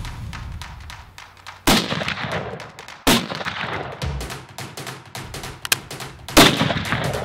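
Three muzzleloader rifle shots fired from a bench rest, about a second and a half in, three seconds in and near the end, each with a trailing echo, over background music.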